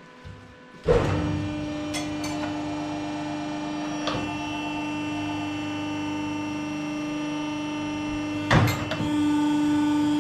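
Steady electrical machine hum with one strong tone, switching on suddenly about a second in and getting louder near the end, with a few short knocks.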